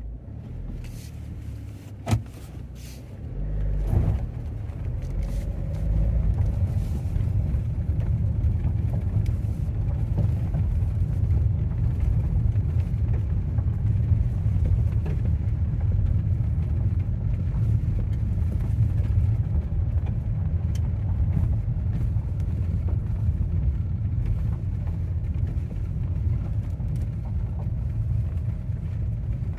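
Car driving, heard from inside the cabin: a steady low engine and road rumble that grows louder about four to six seconds in, then holds. A sharp click about two seconds in.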